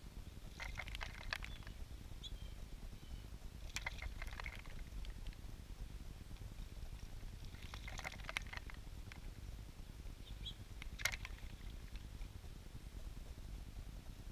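Eastern bluebirds bathing in a shallow birdbath: four short bouts of wing-flutter splashing a few seconds apart, each a quick crackle of spattering water.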